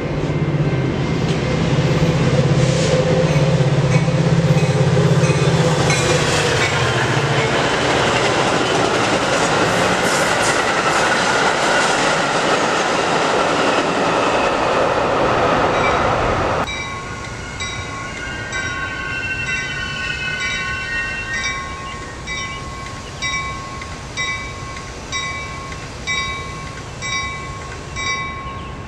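Train running close by, a steady low engine drone under loud rail noise, which cuts off abruptly about 17 seconds in. Then a grade-crossing bell rings about once a second as a Metra diesel-led train approaches the crossing.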